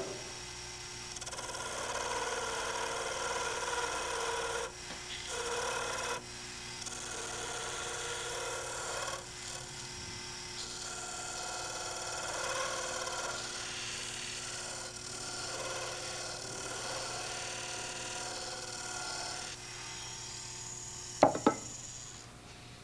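Turning chisel cutting a spinning wooden pen blank on a mini lathe: a rough scraping of wood being shaved, in several spells with short breaks, over the steady hum of the lathe motor. Two sharp knocks shortly before the end.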